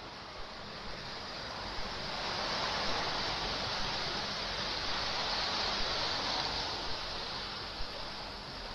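Ocean surf washing against a rocky shore: a steady rushing that swells a little mid-way and eases again, with a few small splashes.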